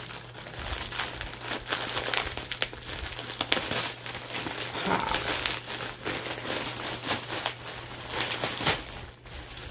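A mailed package's wrapping crinkling and rustling with many small crackles as it is opened by hand.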